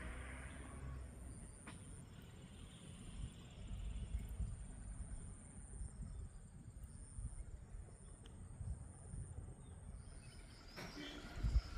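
Outdoor nature ambience: a steady high-pitched insect drone over a low rumble, with brighter chirping coming in near the end.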